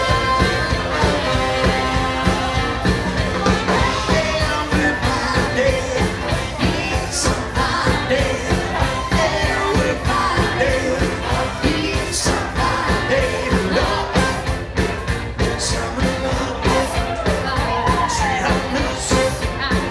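A live wedding band playing an upbeat rock-and-roll number with a steady drum beat, bass and keyboards, a saxophone and brass section, and a lead vocal singing over it.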